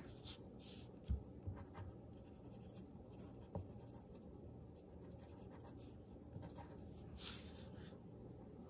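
Faint pencil scratching on paper in short, scattered strokes while a drawing is shaded, with a soft knock about a second in.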